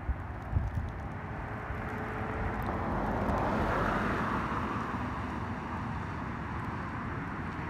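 A vehicle passing at a distance: a steady rush that swells about three to four seconds in and then eases off, over a low rumble.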